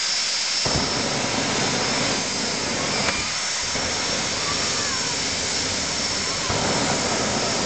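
Jet funny car's turbine engine running with a steady high whine over a loud hiss. About half a second in, a heavy rumble cuts in as the afterburner lights; it thins briefly around the middle and comes back strongly near the end.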